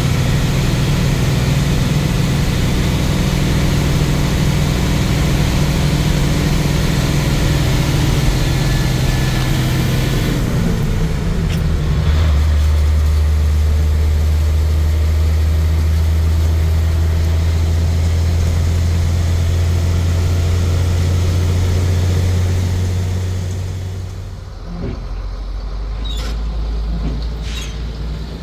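A vehicle engine running steadily. About eleven seconds in its pitch falls, as when the engine slows, and it then runs on at a lower steady note. Near the end the engine gets quieter and a few short knocks are heard.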